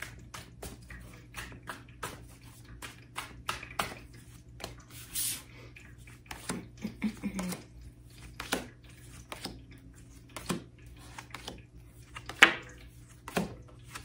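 Tarot cards being shuffled by hand and dealt onto a wooden table: irregular soft slaps and taps of cards, with a brief sliding swish about five seconds in and a sharper tap near the end.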